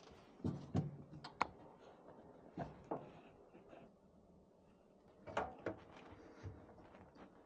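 Irregular knocks, clunks and clicks from hard objects being handled, in three short clusters: about half a second in, around three seconds, and about five and a half seconds in.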